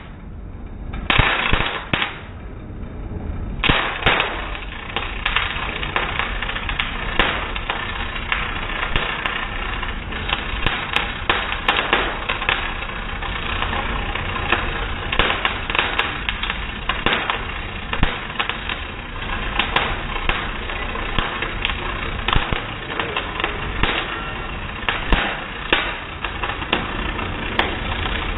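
Electric arc welding: a dense, steady crackle of sharp pops and snaps. The arc breaks off in the first few seconds and restarts about three and a half seconds in.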